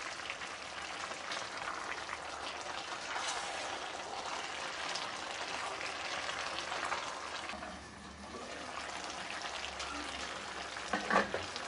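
Pot of chicken and vegetable stew simmering with a steady bubbling crackle while a wooden spoon stirs through it, with small scrapes and splashes. A sharp knock about 11 seconds in.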